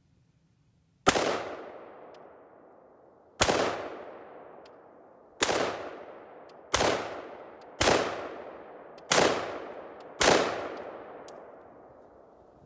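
Seven single shots from an AR-15 rifle, fired one at a time every one to two seconds. Each crack is followed by a long echo that dies away over a second or more.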